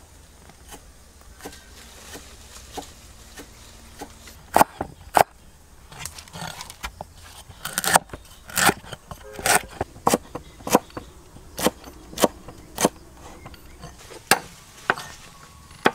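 Knife chopping on a wooden board: a dozen or so sharp, irregular strikes starting about four and a half seconds in, after a few faint ticks.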